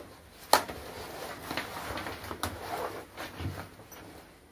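A laptop being slid into the padded laptop compartment of a Mi Casual Backpack. One sharp knock comes about half a second in, then the bag's fabric rustles and scrapes with a few lighter knocks as the laptop settles in.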